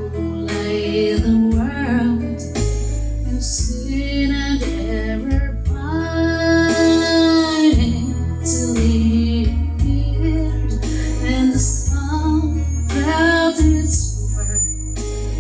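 A Christmas carol sung by a woman's voice over an instrumental backing with bass, holding long sung notes with vibrato.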